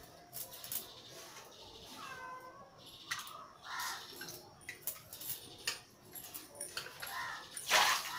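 A cat meows once, briefly, about two seconds in, over the clinking and splashing of hands washing fish pieces in a metal bowl of water. A louder splash of water comes near the end.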